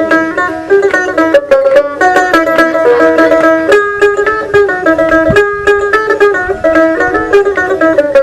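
Dotara, the Bengali baul folk lute, played in a fast run of plucked notes that carries a lively melody.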